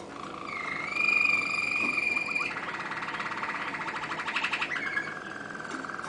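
Waterslager (Malinois) song canary singing: first a held whistle that glides slightly upward, then, about two and a half seconds in, a fast trill, settling near the end into a steady lower whistle.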